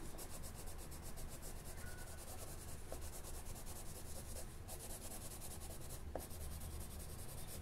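Mondeluz watercolor pencil shading on paper: a faint, steady scratching of rapid, even back-and-forth strokes.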